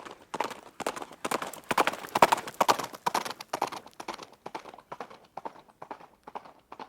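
Horse running, its hooves striking in quick, even groups of clip-clop beats. The hoofbeats grow louder to a peak a couple of seconds in, then fade away.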